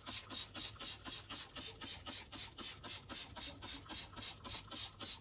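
Trigger spray bottle squirting degreaser in quick repeated pumps, about four short hissing squirts a second.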